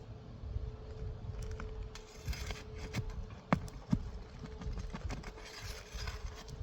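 Scattered clicks and knocks of hand tools working on asphalt roof shingles, with two louder sharp knocks close together about three and a half seconds in, over a low rumble and a faint steady hum.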